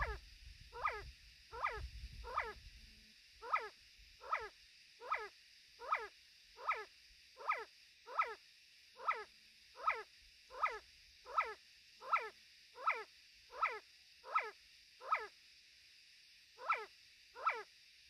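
Male see-see partridge calling a steady series of short, sharp notes, about one every three-quarters of a second, with a brief pause near the end. Low wind rumble on the microphone in the first few seconds.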